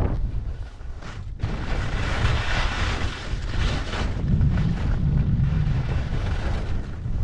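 Wind buffeting the microphone of a helmet-worn camera while skiing, a loud low rumble, with the hiss of skis sliding and scraping on snow, strongest from about a second and a half in.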